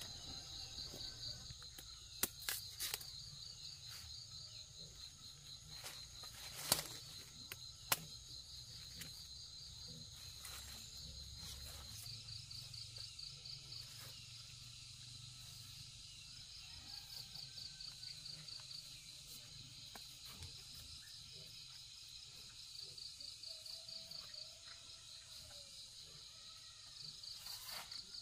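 Insects calling: a steady high-pitched drone with repeated trains of rapid pulsed chirps coming and going. A few sharp knocks stand out, loudest about seven and eight seconds in, from the bananas being cut and handled.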